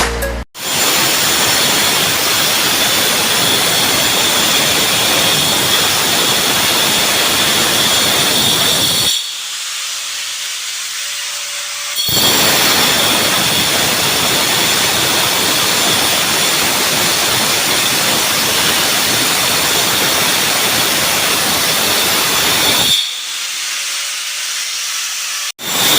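Power tool cutting into a tiled floor, most likely an angle grinder: a steady, loud, hissing cutting noise with a high whine. It eases off to a quieter run about nine seconds in, cuts again about three seconds later, and eases off again near the end.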